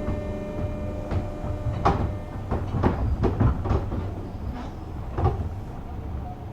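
JR West 201 series commuter train rolling slowly over the track: a low rumble with a run of irregular knocks and clanks from about a second in to about five seconds in, like wheels crossing rail joints and points.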